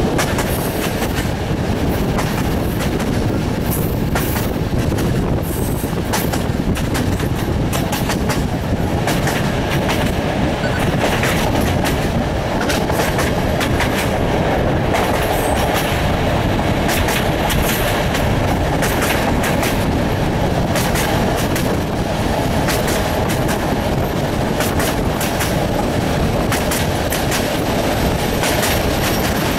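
Passenger train coaches running along the track, heard from an open window: a steady rumble of wheels on rails with frequent clicks as the wheels cross rail joints.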